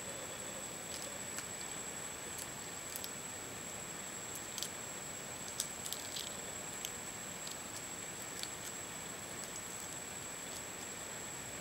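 Scattered small clicks and snaps from raw prawns being cleaned by hand with a small knife, shells and heads picked off, over a steady hiss with a thin high whine.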